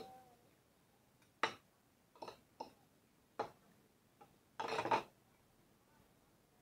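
Kitchen utensils knocking and clinking against dishes: several sharp, separate clicks over a few seconds, then a longer, louder clatter just before five seconds in.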